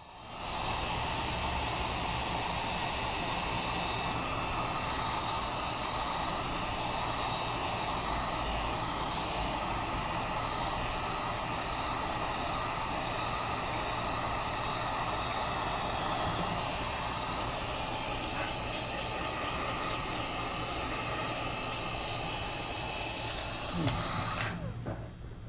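Heat gun blowing steadily, warming the phone's glass. It starts about half a second in and cuts off about a second before the end, followed by a couple of short knocks.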